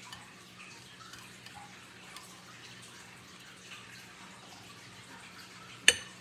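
A metal spoon scraping and tapping in a bowl of food, giving soft, irregular small clicks, then one sharp, ringing clink near the end as the spoon strikes the bowl.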